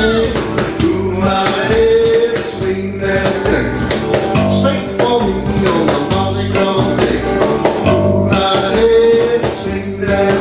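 A small acoustic-electric band playing a song: male singing over electric bass, electric guitar and hand drums (djembe and cajón) keeping a steady beat.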